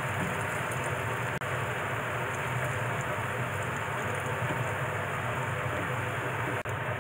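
Battered daikon radish sticks deep-frying in hot oil in a pan: a steady, even sizzle, with a low hum underneath. Two light clicks, about a second in and near the end.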